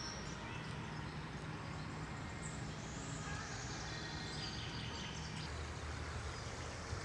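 Outdoor ambience: a steady hiss with a few faint bird chirps, and a low steady hum underneath.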